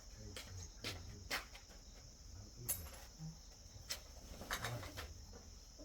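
Insects chirping in a steady high drone, with scattered light clicks and knocks.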